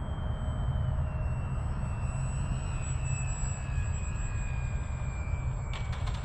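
Small electric motor and propeller of a micro balsa RC aerobatic plane (Cap232 Micro) whining thinly, the pitch slowly falling as it is throttled back on the landing approach, over a steady low rumble.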